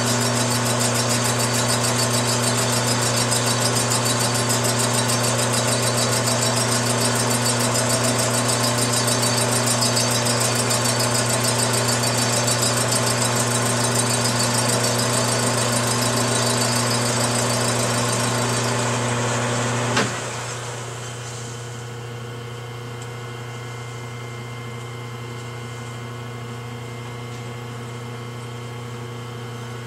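Metal lathe running and facing the gasket surface of a 50cc two-stroke cylinder head flat, a steady machine drone with a high hiss. About two-thirds of the way in there is a sharp click and the sound drops to a quieter steady hum as the lathe is stopped.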